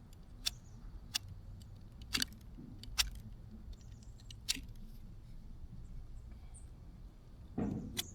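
Scattered sharp clicks of a hand tool stripping sheathing off old copper irrigation control wire, about six in all, over a low steady rumble, with a louder, duller handling noise near the end.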